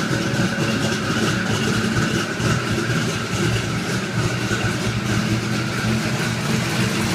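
Carbureted 347 cubic-inch stroker Ford small-block V8 in a 1983 Mustang GT, idling steadily.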